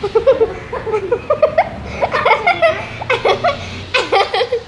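People laughing hard, a rapid string of short giggling bursts that keeps going throughout.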